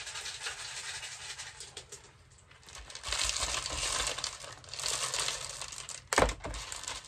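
LECA clay pebbles being poured from a plastic pot into a plastic pot, rattling and clattering in several pours, with one loud thump about six seconds in.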